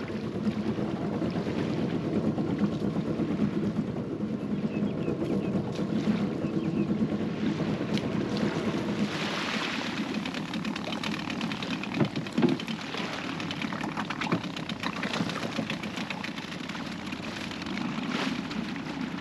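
Small boat's outboard motor running steadily.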